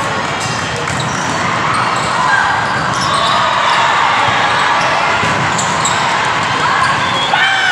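Indoor volleyball rally in a large echoing hall: sharp ball contacts and players' calls over the hall's din, with shouting breaking out near the end as the point is won.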